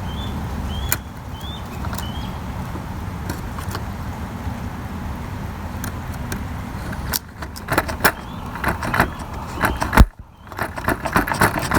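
Metal tools and parts being handled: a run of clinks and rattles begins about seven seconds in, with one loud knock near ten seconds. Before that only a steady low background rumble with a few faint short chirps.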